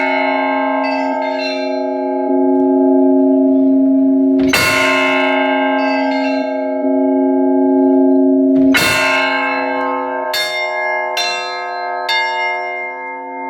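Orthodox church bells rung by hand in the belfry. A large bell is struck about every four seconds, twice here, with the stroke before still ringing on, and smaller bells give lighter, higher strikes in between. These are the last strokes that close the peal.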